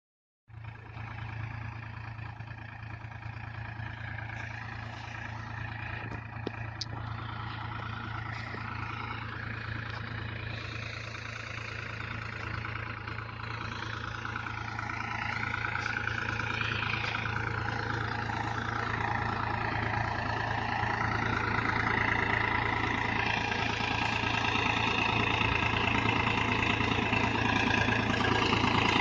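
Engine of farm machinery running steadily with a constant low hum, getting louder over the second half.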